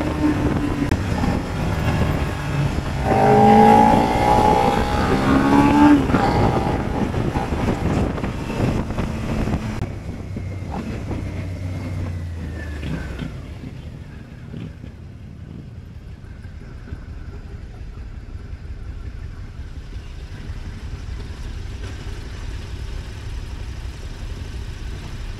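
Motorcycle engine revving hard on a tight practice course, pitch rising and falling with the throttle, loudest a few seconds in; after about ten seconds it drops to a quieter, steady engine sound.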